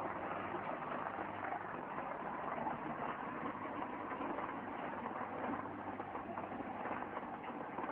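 A dog treadmill with slats on rollers, running steadily under a pit bull working on it: a continuous rattle made of many small clicks.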